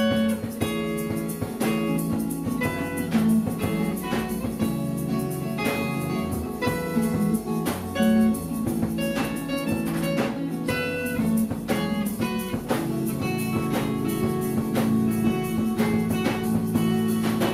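Live acoustic band playing an instrumental passage: several acoustic guitars plucking and strumming over bass, with light percussion.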